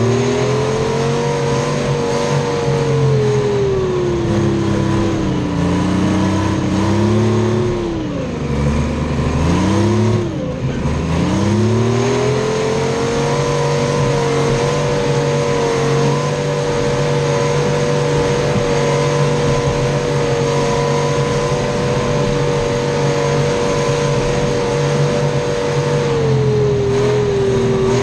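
Detroit Diesel 3-53 three-cylinder two-stroke diesel in a Clark 664B skidder, running under load as the skidder travels, heard right beside its exhaust muffler. The engine speed rises and falls several times in the first dozen seconds, then holds steady, with a brief dip near the end.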